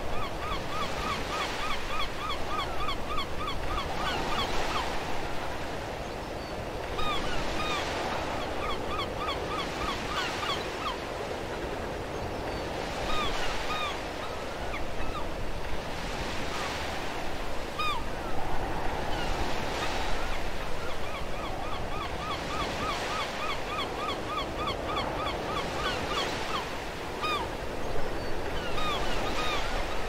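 Ocean surf washing in, swelling every few seconds. Over it, birds call in quick runs of short, repeated notes, with scattered single calls between.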